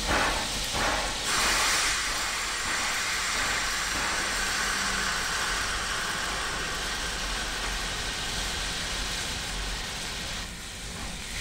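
A steady, noisy hiss that starts suddenly about a second in, then slowly fades and drops lower near the end.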